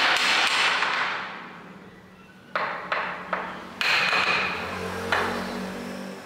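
Hammer knocking a turned wooden cap ring down onto a wooden newel post. A loud blow rings out at the start, then five sharper knocks follow in the second half, each with a short ringing tail.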